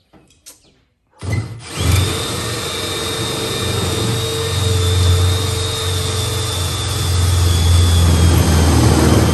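Power drill running steadily as it bores a bolt hole through the vehicle's decking, starting about a second in and getting a little louder toward the end.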